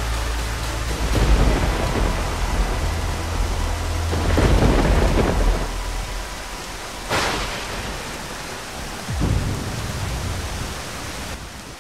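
Heavy, steady rain with thunder rumbling and cracking several times, the storm fading out near the end.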